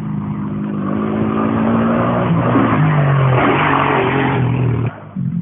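Off-road vehicle engine revving, its pitch dropping and rising in steps, then cutting out briefly near the end.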